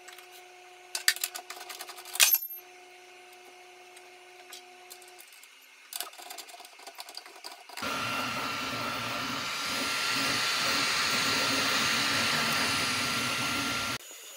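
A few clicks and knocks, then about eight seconds in a 3D printer running a print: a loud, steady whirring hiss with a thin high whine, cutting off suddenly near the end.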